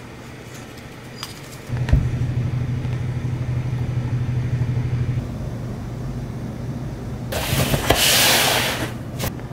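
Hands rummaging in a cardboard box, a loud scraping rustle lasting about a second and a half near the end. Under it is a steady low rumble that starts with a thump about two seconds in and eases a few seconds later.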